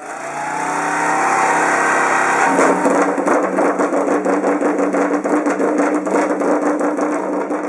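Motorcycle engine revving, its pitch rising over the first couple of seconds, then held at a steady high pitch with a fast, even pulsing.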